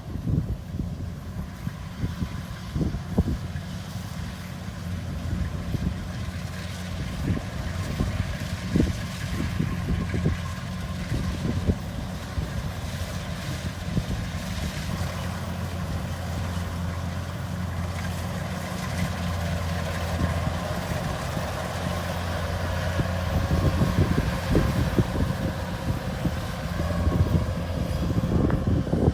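Rice combine harvester's engine running steadily under load, with scattered short knocks over the drone.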